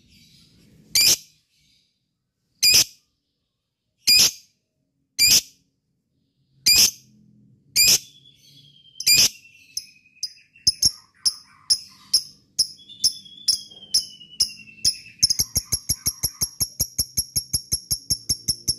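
Lovebird giving sharp, shrill calls about every second or so. About halfway through it breaks into ngekek, the long chattering trill of rapid repeated notes that speeds up to about eight a second and keeps going.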